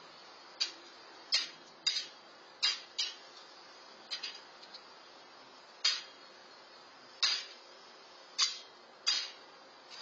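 Blue jay pecking at dry cat food in a metal pan: a series of about ten sharp clicks at irregular intervals, over a steady faint hiss.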